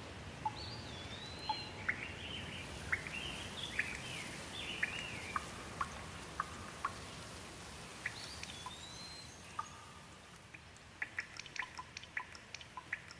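Birds singing in short gliding, warbling phrases over a steady hiss of rain. Toward the end the hiss thins and quick, scattered water drips take over.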